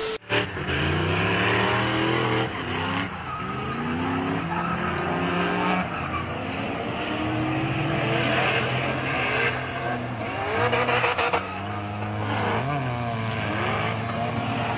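Mazda RX-7 FC's 13B twin-rotor engine revving up and down over and over while drifting, with tyres squealing and skidding. A short burst of TV-static noise right at the start.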